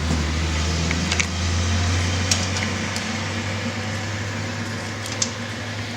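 Steady low machine hum, with a few light clicks from hands working a stripped, twisted 12-gauge wire into a crimp-on butt connector.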